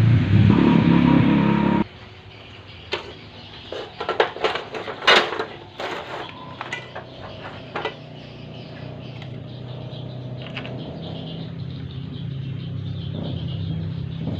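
Music that cuts off suddenly about two seconds in, then scattered sharp metal clicks and knocks of hand tools at work. A low steady engine hum slowly grows louder toward the end.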